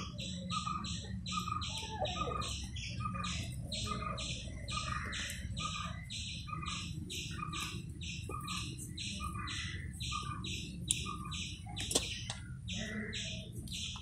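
A bird chirping over and over at an even pace, about two to three chirps a second. Two sharp clicks come near the end.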